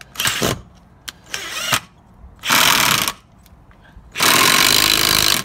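Ridgid cordless impact driver hammering a screw through a wooden post into a cinder-block wall, in four loud bursts, the last and longest about a second.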